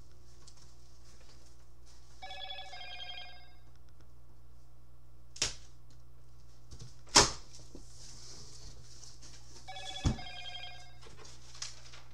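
A short electronic ringing tone, like a phone ringing, sounds twice: about two seconds in and again about ten seconds in. Between and around the rings come three sharp knocks from handling the cardboard shipping box as it is opened, the loudest about seven seconds in. A steady electrical hum runs underneath.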